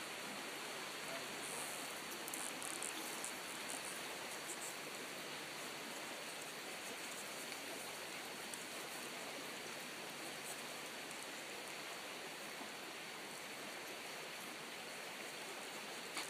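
Steady rushing of a flowing stream, an even, unbroken water noise.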